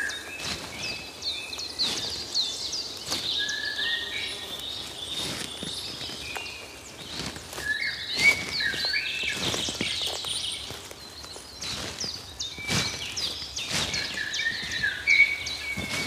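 Woodland birdsong: several birds chirping and calling together with many quick, short rising and falling notes. Irregular sharp knocks or steps sound now and then underneath the birdsong.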